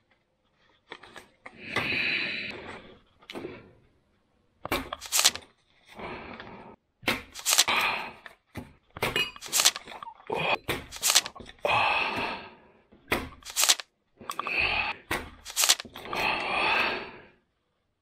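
Handling noises on a wooden desk: paper and a banknote rustling and crinkling in bursts of about a second, broken by sharp clicks and taps of objects being picked up and set down.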